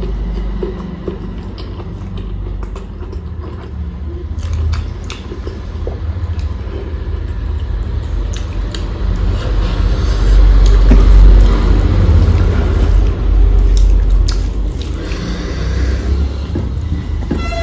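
Close-miked chewing of a mouthful of rice and potato-and-cauliflower curry, with many small wet clicks over a heavy low rumble. It is loudest a little past the middle.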